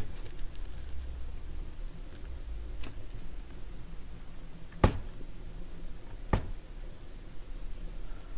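Four sharp clicks of a screwdriver and small metal parts being worked on a Sansui 2050c turntable's tonearm assembly, spread over several seconds, the loudest about five seconds in.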